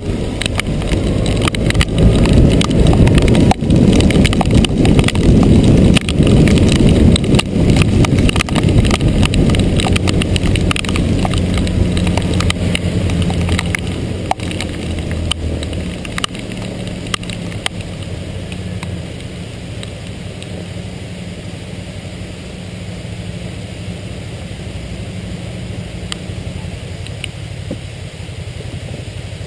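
Motorcycle engine running under way, with wind rushing over the camera microphone and scattered sharp ticks. The wind noise is loudest in the first half and eases after about fifteen seconds as the bike slows.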